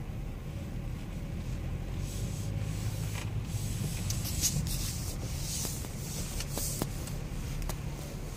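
Inside the cabin of a BMW X6 driving slowly off-road: a steady low engine and tyre hum, with the windscreen wipers swishing across the wet glass several times from about two seconds in.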